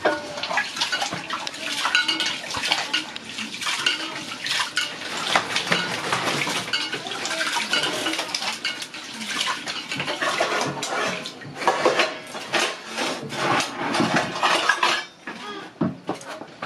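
Rice being washed by hand in water in an aluminium pot: grains swishing and rubbing under the fingers, with many small clinks and scrapes against the metal.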